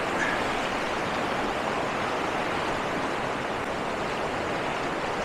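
Fast-flowing river rushing steadily over rocks and shallow rapids.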